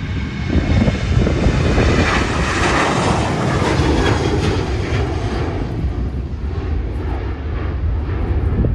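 Aircraft engines as a plane passes. The noise swells to a peak about three seconds in, then slowly fades, over a steady low rumble.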